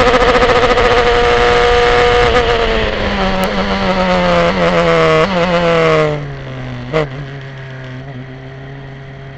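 Formula 3 car's engine flat out in sixth gear, then braking hard with a run of downshifts: each gear change is a short jump in revs over a falling engine note. About six seconds in, the engine drops to a quieter, steady low note in second gear through the chicane, with a single sharp knock about a second later.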